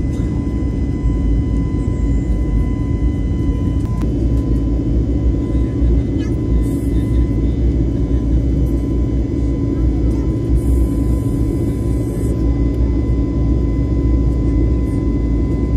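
Passenger airplane cabin noise in flight: a steady engine drone and rumble of rushing air, with a steady high whine. A brief high hiss rises over it about eleven seconds in.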